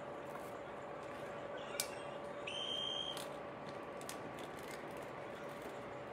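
A short, high, steady beep lasting about half a second, near the middle, over a faint steady hum and a few light clicks.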